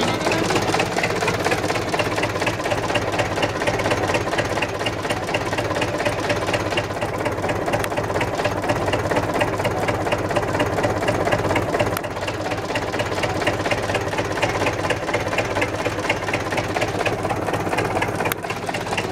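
UTB 650 M tractor's four-cylinder diesel engine running steadily.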